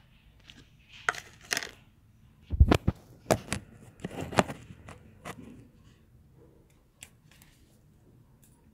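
Handling noise as a phone is moved about and set down on the floor: a string of knocks and taps, the loudest a dull thump about two and a half seconds in, with faint rustling between.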